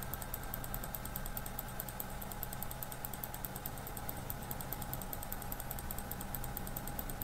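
Steady low electrical hum and hiss of the recording setup, with a faint, fast, even ticking running through it.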